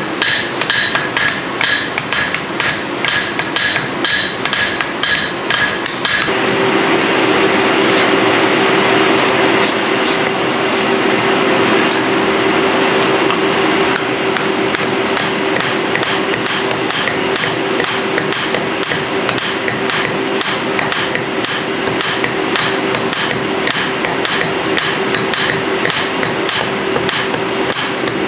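Hand hammers striking red-hot steel on an anvil in quick, regular blows while an anvil is forged by the build-up method. About six seconds in, a loud steady roar with a hum sets in and keeps going. The hammering pauses for several seconds, then resumes.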